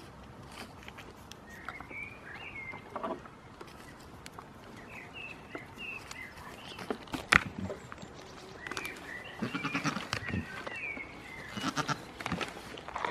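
Goats bleating several times, in short wavering calls, with one sharp knock about seven seconds in.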